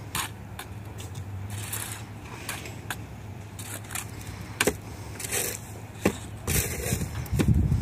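Steel mason's trowel clinking and scraping against concrete blocks and mortar as blocks are laid: a string of sharp taps and scrapes at irregular intervals. A louder low rumble comes in near the end.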